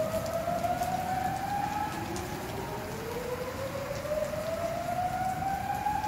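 Flood early-warning siren wailing, its tone rising slowly over about four seconds and then starting low again, over a steady hiss of heavy rain.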